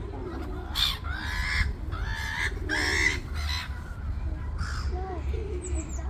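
Black-headed gulls calling: a run of short, harsh calls, closest together in the first three seconds and then a few more, over a steady low rumble.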